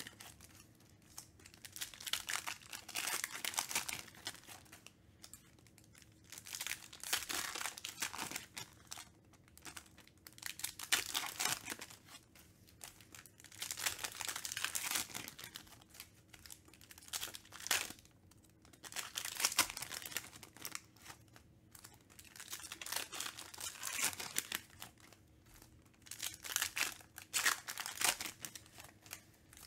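Foil trading-card pack wrappers crinkling and tearing as packs are ripped open by hand one after another, in repeated bursts a few seconds apart with short quiet gaps between.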